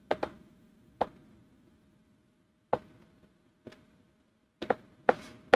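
Hard tip of an iPens X1 capacitive stylus clicking on an iPad's glass screen as strokes are put down. The taps are sharp and irregularly spaced, and several come close together near the end.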